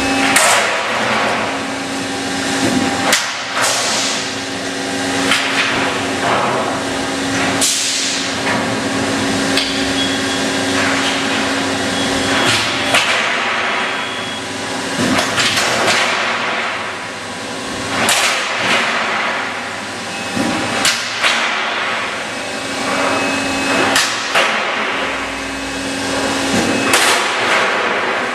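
Automated CNC corrugation line for silo panels: heavy metal bangs and clanks every second or two as steel plate is stamped and moved through the machine, some of them ringing. A steady machine hum runs under them, drops out about halfway through and comes back near the end.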